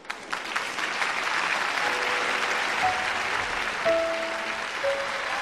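Audience applause breaks out suddenly and keeps going. About two seconds in, soft background music of a few long held notes comes in under it.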